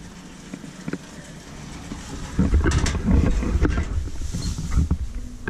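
Loud, irregular rumbling handling noise with a few knocks as a hand-held camera is moved about, setting in about halfway through.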